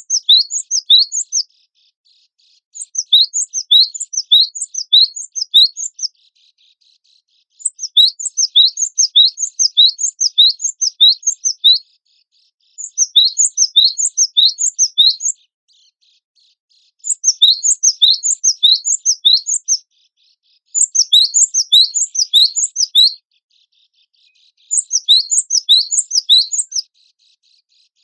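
Gelatik batu (cinereous tit) song: bouts of quick, sharp, high, rising chirp notes, each lasting two to three seconds and separated by short pauses.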